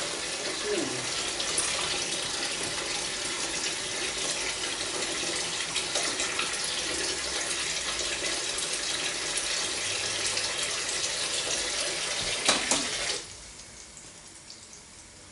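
Kitchen tap running steadily into the sink, then turned off about 13 seconds in, just after a knock.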